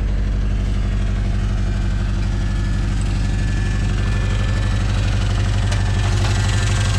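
Engine idling steadily with an even, rapid firing pulse. The engine has a rod knock.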